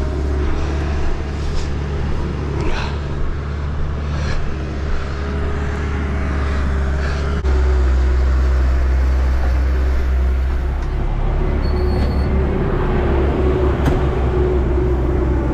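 Diesel engine of an excavator running steadily, a low rumble with a steady whine above it and a few light knocks. The sound changes abruptly about halfway through and the rumble becomes louder.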